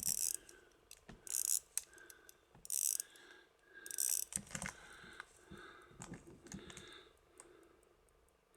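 Illinois Sangamo pocket watch being wound at the crown: repeated short bursts of ratcheting clicks from the winding click, one twist about every second and a half, growing softer and stopping about seven seconds in.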